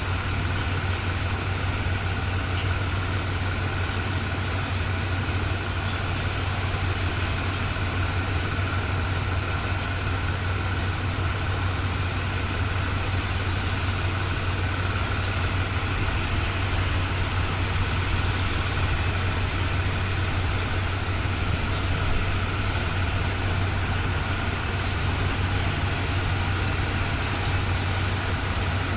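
Diesel locomotive engine idling with a steady low drone.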